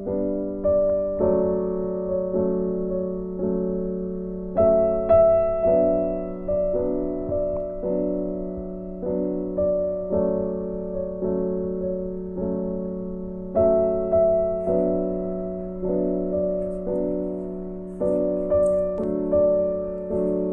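Background music: a gentle piano piece with evenly struck notes, each fading before the next, and stronger accents twice.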